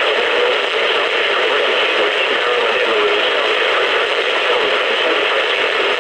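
Steady static hiss from a weather radio receiver on a weak NOAA Weather Radio signal, limited to the narrow band of a small radio speaker.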